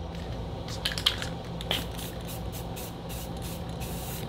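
Aerosol spray paint can hissing in a series of short sprays as flat black paint goes onto a PVC pipe.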